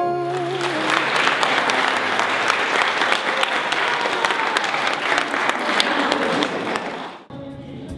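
Crowd of guests applauding, a dense patter of many hands clapping that stops abruptly about seven seconds in.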